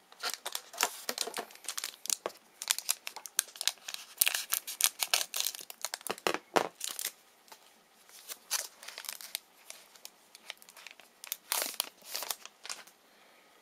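A trading-card pack's wrapper being torn open and crinkled by hand: a long run of sharp crackles and rips, with a short lull partway through.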